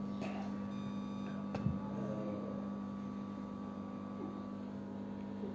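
Steady low electrical mains hum with a fainter, higher steady tone that stops about four and a half seconds in. A single soft click comes about a second and a half in, and a faint, indistinct voice is heard about two seconds in.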